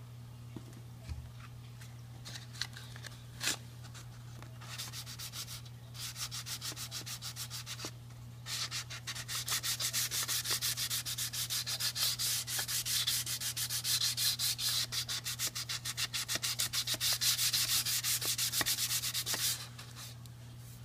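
Green burnishing disc scrubbed back and forth over oiled hardwood wet with maintenance paste, wet-sanding out a scratch and closing the grain. A few light scrapes give way to steady rhythmic strokes, several a second. After a short pause they grow faster and louder, then stop shortly before the end.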